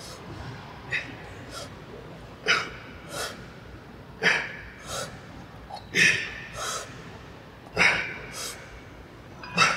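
A man breathing hard in time with bent-over barbell rows: five sharp, forceful breaths about two seconds apart, one per rep, each followed by a softer breath.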